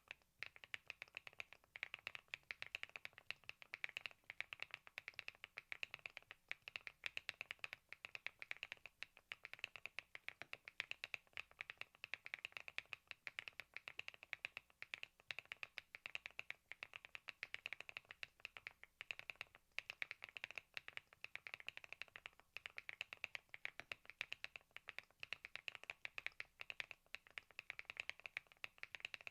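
Thinkway TAUCHE.S 501 full-aluminium 75% mechanical keyboard being typed on continuously, its keystrokes a fast, even run of clicks.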